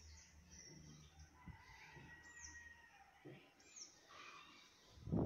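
Faint birds chirping in the background, a few short high calls. A dull, louder thump near the end.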